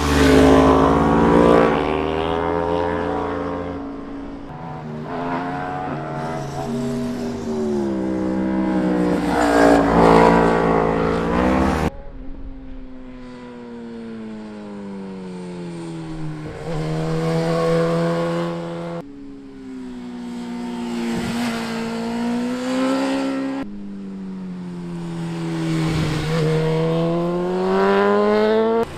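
Sport street motorcycles ridden hard through canyon corners: each engine drops in pitch as it slows for a bend, then revs up again as it accelerates out. The sound comes in several separate clips with sudden cuts between them.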